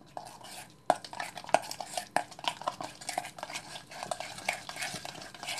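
Metal spoon stirring a grainy, oily seasoning mix in a stainless steel bowl, scraping and clinking against the metal in quick, irregular strokes. The clinks start about a second in.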